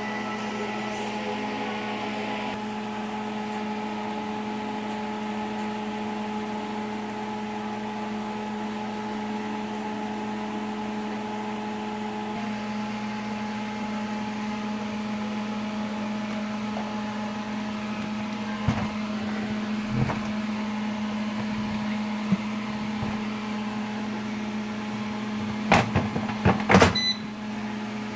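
Electric air fryer running with a steady hum from its fan. A few knocks come in the second half, and a louder clatter of knocks near the end.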